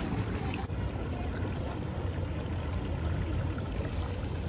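Steady rush of the Ganges flowing past the river bank.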